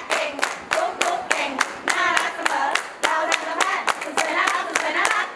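A group clapping hands together in a steady rhythm, about four claps a second, with voices singing along.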